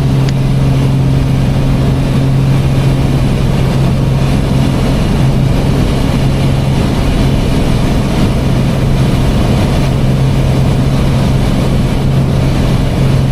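Piper Archer's piston engine and propeller droning steadily in the cockpit during a climb: a constant low hum under a wash of engine and air noise.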